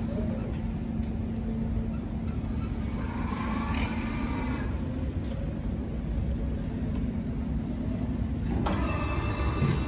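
Four-directional electric reach truck driving, its electric motors whining over a steady low rumble; the whine swells around the middle and again near the end.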